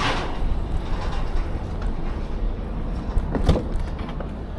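Steady low rumble of a road vehicle, with a short knock at the start and a single clunk about three and a half seconds in.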